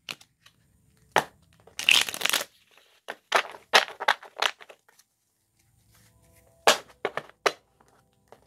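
A deck of tarot cards being shuffled by hand: sharp clicks and slaps of cards, with a short dense rattle of cards about two seconds in, a run of clicks around three to four seconds and a few more near the end.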